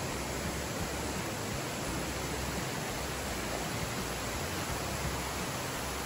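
Steady, even rush of a waterfall and the fast stream water tumbling over rocks below it.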